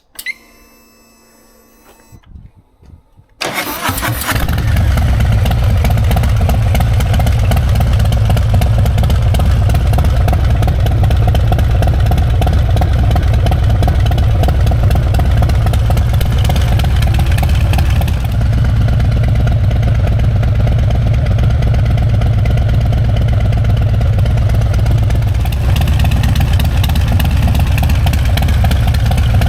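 Harley-Davidson Sport Glide's Milwaukee-Eight V-twin starting up. It fires about three and a half seconds in and settles into a steady, loud idle with a deep low throb.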